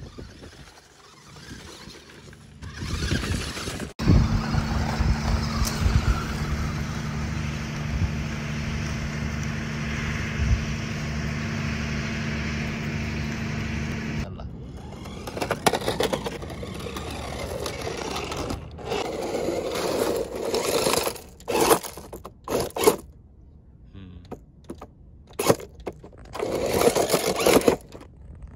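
Radio-controlled crawler truck driving over loose rocks and gravel: a steady motor hum for about ten seconds, then irregular crunching and scraping of stones under the tyres in starts and stops.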